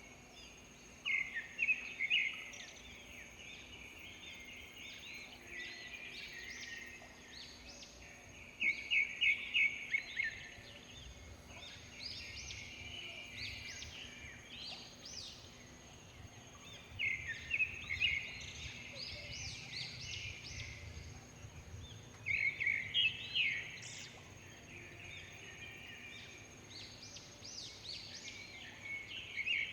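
Birds singing in a rural morning chorus. One bird repeats a loud phrase of quick, rapid notes about every six to eight seconds, with scattered shorter chirps from other birds in between.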